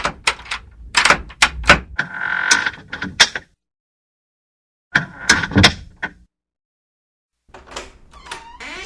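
A door being worked: sharp knocks and rattles, with a squeaky hinge creak. The bursts are separated by sudden cuts to dead silence. Near the end a new creak begins, gliding downward in pitch.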